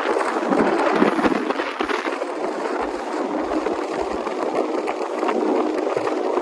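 Boat under way at speed: a loud, steady rush of engine, wind and water noise, with wind buffeting the microphone.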